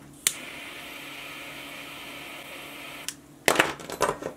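A lighter clicks on and its flame hisses steadily for about three seconds while it melts the frayed end of a nylon paracord, then clicks off. Near the end come a few loud rustling knocks as the cords are handled.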